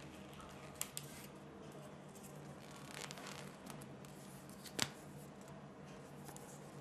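Faint handling sounds of the kit being unpacked: small clicks and a paper instruction leaflet rustling as it is picked up and turned over. Two light clicks come about a second in and a sharper click near five seconds in.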